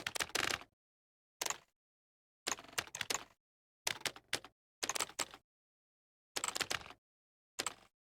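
Computer keyboard being typed on in short bursts of rapid key clicks, about seven bursts with pauses between them.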